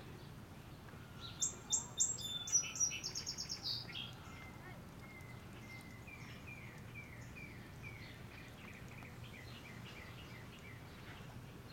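Small songbirds singing: a loud burst of quick high notes about a second in, lasting some three seconds, then a softer run of short falling notes repeated about twice a second. A steady low hum lies underneath.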